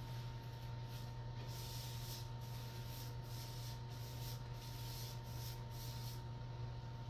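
Repeated swishing strokes of paint being applied to a wall, a few strokes a second, stopping about six seconds in, over a steady low electrical hum.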